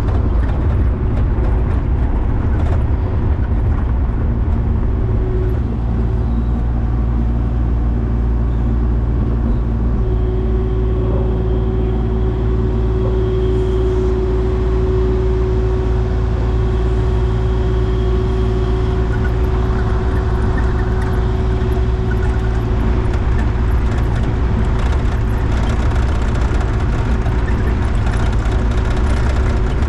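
Excavator diesel engine running steadily under load, with a steady whine that grows stronger from about a third of the way in until past the middle.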